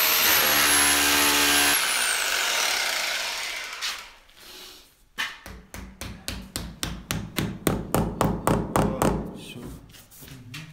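Electric drill boring through a soundproofing panel into the wall, its motor spinning down with a falling whine about two seconds in. After a pause, a fast run of even knocks, about four a second, as a plastic disc dowel is driven into the drilled hole.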